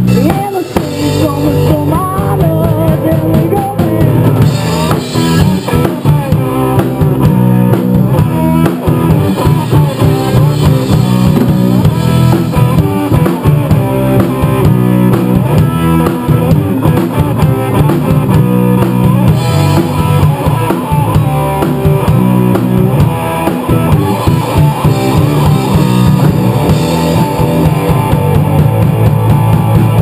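Live rock trio playing an instrumental passage: drum kit and electric guitars, amplified through PA speakers, with steady drumming and no singing.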